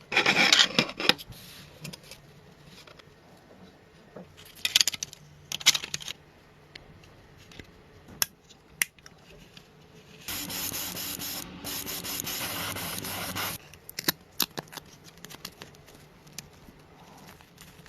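Rubbing and scraping handling noises with sharp clicks, and an even hiss lasting about three seconds a little past the middle.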